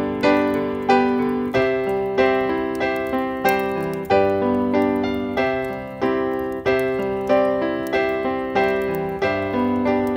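Solo piano playing a Christmas tune, notes and chords struck about twice a second and left to ring and fade.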